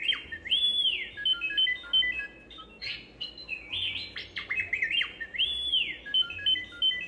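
R2-D2 toaster's built-in speaker playing R2-D2 beeps, chirps and a rising-then-falling whistle in a repeating sequence, heard twice: the alert that the toast is about to pop up.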